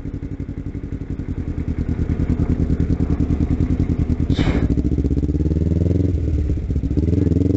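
Kawasaki Ninja 250's parallel-twin engine pulling away from low revs, growing louder as it accelerates. A short hiss about four and a half seconds in; about six seconds in the sound breaks, as at a gear change, and the pitch then climbs again.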